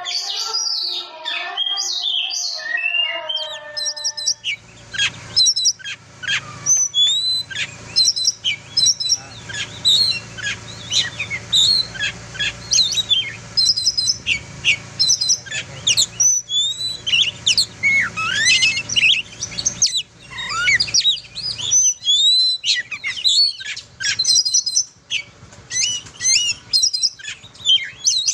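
Oriental magpie-robin (kacer) singing a varied song of loud, sharp whistled notes, quick rising and falling glides and chirps. The song starts about four seconds in, after a different smoothly gliding tune, over a low steady hum.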